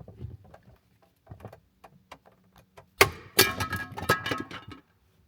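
Plastic interior light covers in a Dodge Charger being pried off: scattered small clicks, then a sharp snap about three seconds in followed by a quick run of clicking and rattling as the pieces come free.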